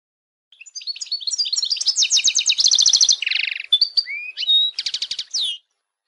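European goldfinch singing: a fast run of twittering trills and buzzy gliding notes for about five seconds, which stops abruptly.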